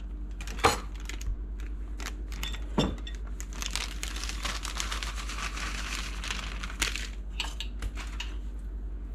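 Plastic bag of cake mix crinkling as it is handled and tipped, with the dry mix pouring out into a glass bowl in the middle of the stretch. Two sharp clicks stand out, about one and three seconds in.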